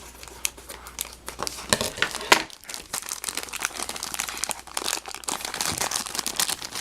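Toy packaging crinkling and crackling as it is handled and opened by hand, a dense run of sharp crackles and clicks.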